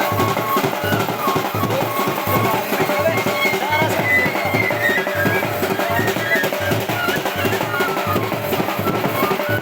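Loud dance music with a steady, heavy drum beat and a melody line over it.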